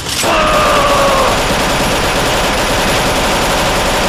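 Loud, dense crackling sound effect that starts abruptly about a quarter of a second in and goes on without a break, with a falling whine over its first second.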